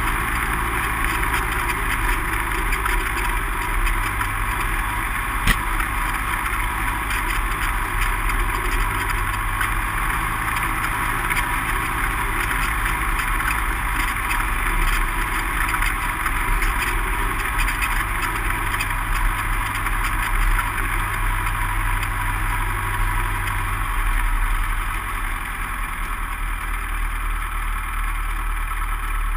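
Light aircraft's piston engine running steadily at low power while the plane taxis over a grass strip, heard from inside the cockpit. A single sharp click comes about five seconds in, and the engine note drops slightly near the end.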